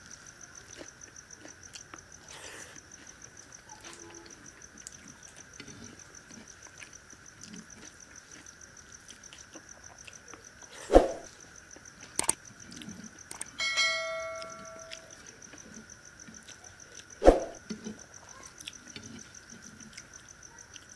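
A person eating rice with their fingers from a clay plate: quiet chewing and the fingers working the food, with two sharp smacks, one about halfway through and one near the end, and a brief bell-like ringing tone between them, over a steady high-pitched drone.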